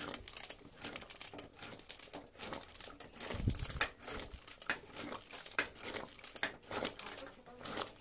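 Immersion blender churning boiled taro leaves in hot water in a pressure cooker pot, heard as a dense, irregular crackling rather than a steady motor hum, with a low thump about three and a half seconds in.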